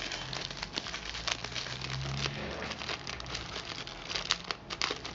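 Plastic wrapping crinkling and rustling, with many small clicks, as a phone charger and USB cable are handled.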